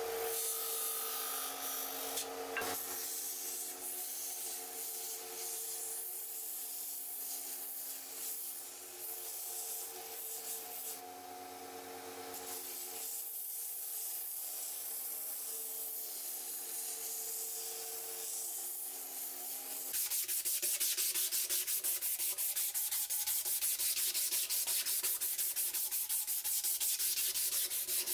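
Wooden knife handle being sanded on running electric sanders, disc sander then belt sander, with a steady motor hum under the rasp of wood on the abrasive. About 20 seconds in this gives way to fast, rhythmic hand sanding: a strip of abrasive pulled back and forth around the round wooden handle.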